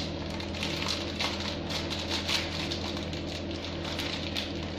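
Plastic packaging of dioul (brik pastry sheets) crinkling and rustling as it is handled and opened, a run of irregular crackles over a steady low hum.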